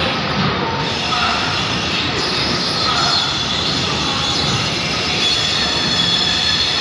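Vande Bharat Express train running past: a steady noise of wheels on rails with a faint high-pitched wheel squeal over it.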